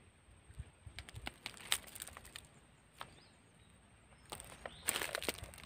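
Handling noises of a freshly caught barracuda being gripped and lifted: scattered sharp clicks and rustles, with a denser flurry about four and a half seconds in.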